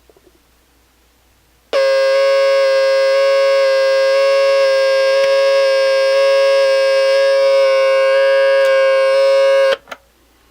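Heathkit GC-1108 digital alarm clock's alarm sounding: a loud, steady buzzing tone that starts about two seconds in, holds for about eight seconds and cuts off suddenly, followed by a few clicks.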